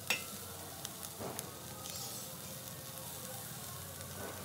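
Spice-coated whole fish sizzling on a wire grill over glowing charcoal, with a few sharp crackles, the loudest just after the start.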